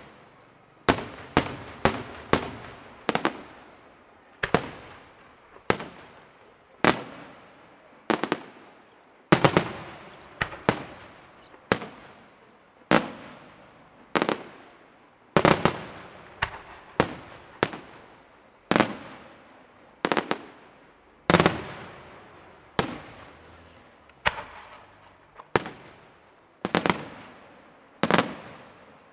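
Aerial firework shells bursting in quick succession, about one or two sharp bangs a second, sometimes two or three close together, each trailing off in an echo.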